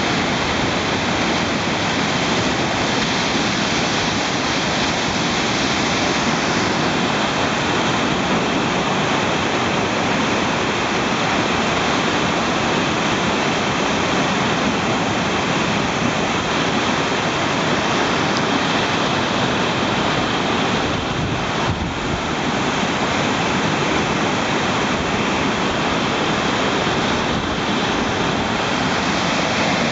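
Whitewater river in flood at high water: big standing waves and rapids rushing with a steady, unbroken noise.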